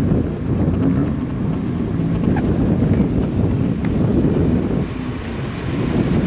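Engines of a queue of Porsche rally cars running as they roll slowly past at close range. The sound is a dense, uneven rumble.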